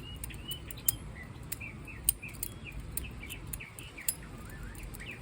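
Balisong (butterfly knife) being flipped: scattered sharp clicks of the handles, with louder clacks about one, two and four seconds in. Small birds chirp in the background.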